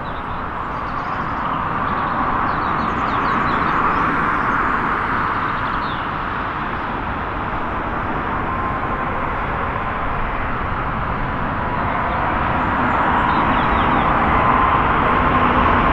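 Heavy jet airliner landing, its engines giving a steady rush that swells about four seconds in and again near the end, with a faint high whine coming in about halfway.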